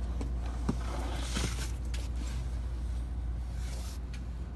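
Steady low background hum, with a few light knocks and brief rustles.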